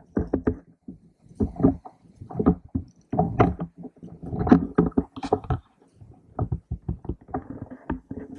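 Irregular knocks, thumps and rustling: handling noise from a camera mounted on an airsoft rifle, jostled as the player moves.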